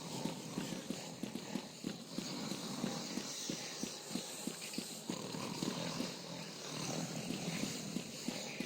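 Horses' hooves clip-clopping, a quick irregular clatter of several strikes a second over a steady hiss.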